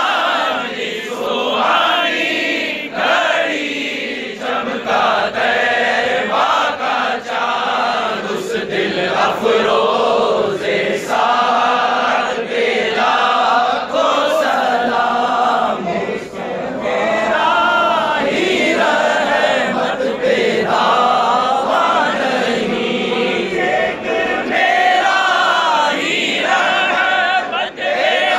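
A large crowd of men chanting together in unison, a devotional Islamic chant sung in repeated phrases with short breaks between them.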